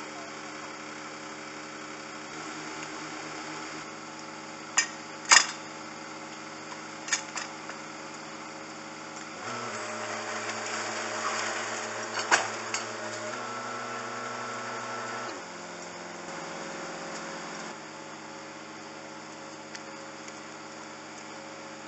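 Engines of rail track machinery running steadily, a low hum that jumps abruptly in pitch several times. Sharp clanks stand out about five seconds in and again near twelve seconds.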